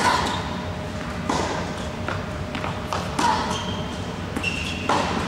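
Tennis ball struck by a racket and bouncing on an indoor hard court, four sharp hits that echo around the large hall. A short high squeak of tennis shoes on the court comes about four seconds in, as the player moves across.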